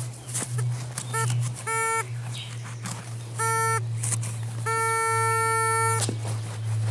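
Metal-detecting pinpointer probing in a dig hole: a few short beeps, then a steady tone for over a second, signalling metal close to its tip. Soil scraping and crackling from the digging sit around the beeps, over a low steady hum.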